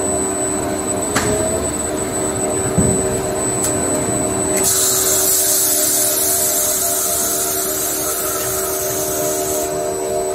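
Toilet paper log rewinder running: a steady machine hum with several held tones, two sharp clicks and a thump in the first few seconds, and a high hiss that starts about four and a half seconds in and stops shortly before the end.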